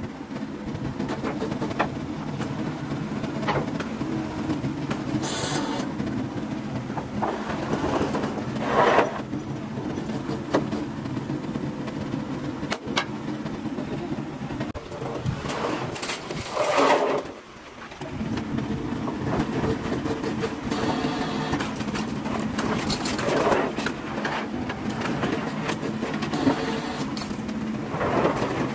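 A motor or engine running steadily, with a few short louder bursts on top.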